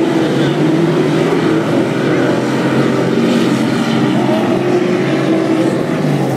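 Street stock race car engines running together in a dirt-track feature race: a loud, continuous engine drone with several pitches drifting up and down as the cars lap.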